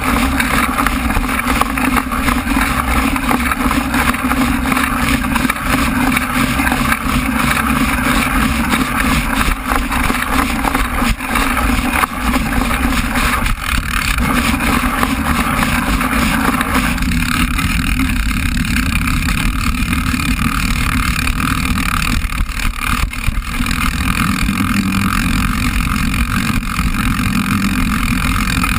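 Steady rumble of a bicycle ridden over a rough dirt track, heard from a camera fixed to the bike: tyre and frame noise mixed with wind on the microphone.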